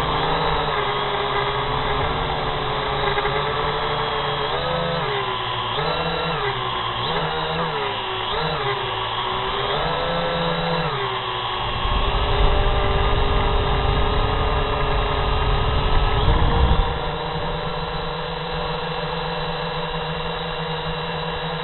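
Quadcopter drone's electric motors and propellers whining, heard from its own camera; the pitch swings up and down repeatedly in the first half, then holds steady. A louder low rumble joins in from about twelve to seventeen seconds in.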